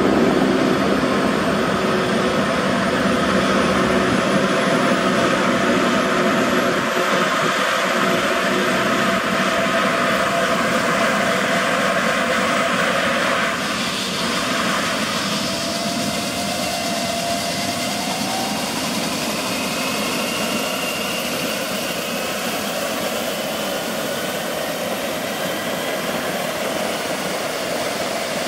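Eurocopter EC135 P2+ helicopter running on the ground after start-up, its twin Pratt & Whitney PW206B2 turboshaft engines whining steadily while the main rotor turns. A high whine rises over the first few seconds, and the overall level dips slightly about halfway.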